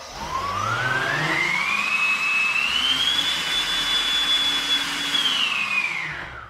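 Twin DYS 3530 1700 KV brushless motors spinning the same-direction propellers of a 3D-printed 100 mm electric ducted fan on a 4S battery. A whine over a rush of air rises in pitch as the throttle comes up, holds at full speed for about a second and a half, then falls as the throttle comes back near the end. It makes a lot of noise for little thrust, which the builder puts down to turbulent flow between the co-rotating propellers.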